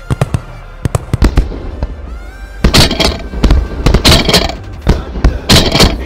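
Shotguns firing in a rapid, ragged volley from several guns: many sharp reports in quick succession, with the heaviest clusters about halfway through and near the end. Music plays underneath.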